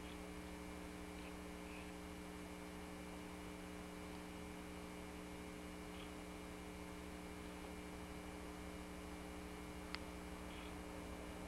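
Steady low electrical hum with even hiss underneath: the recording's own background noise. One sharp click comes near the end.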